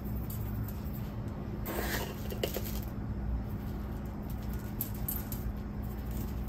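Coarse kosher salt sprinkled by hand, the grains pattering faintly onto raw beef and a plastic cutting board, with a brief louder rustle about two seconds in. A steady low hum runs underneath.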